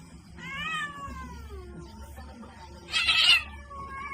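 A cat meowing: one long drawn-out meow that falls in pitch, then a louder harsh cry about three seconds in, and another meow starting near the end.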